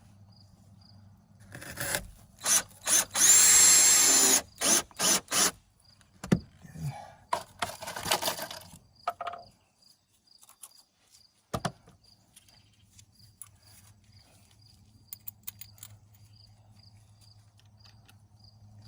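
Power drill driving screws in a string of short trigger bursts, with one longer run about three seconds in whose motor whine rises in pitch. After about nine seconds the drill stops, leaving steady insect chirping.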